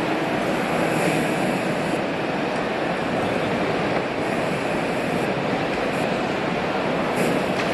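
Steady, even background noise of a large exhibition hall, with no distinct events.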